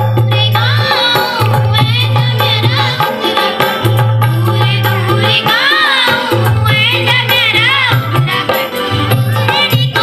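Kumaoni folk music played loud over a PA for a dance: a wavering, ornamented sung melody over hand-drum percussion and a low bass note that comes and goes about every second or two.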